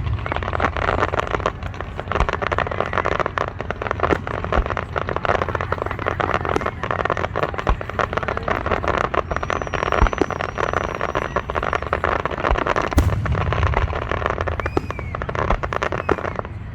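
Fireworks display: a dense, continuous crackling of many small bursts, with a heavy boom about 13 seconds in. A faint high whistle runs for a couple of seconds in the middle.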